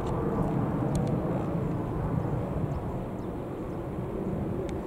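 Jet engines of a twin-engine Boeing airliner climbing out after takeoff: a steady low rumble that slowly fades as the aircraft draws away.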